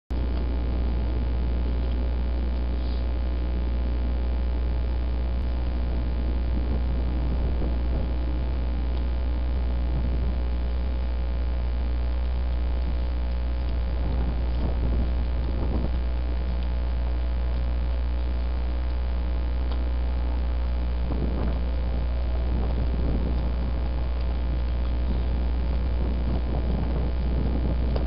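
Steady low electrical hum with a thin buzz of overtones above it, unchanging throughout.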